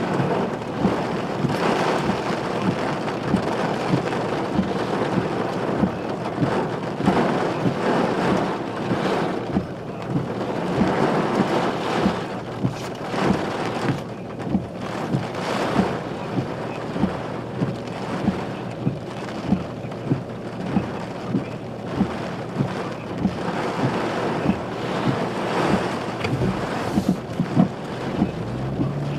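Thunderstorm wind and rain on the microphone: a steady rushing noise with frequent sharp pops.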